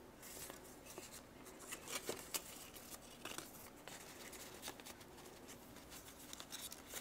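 Faint rustling and light taps of paper cards and a folded paper booklet being handled and turned over, scattered irregularly through the stretch.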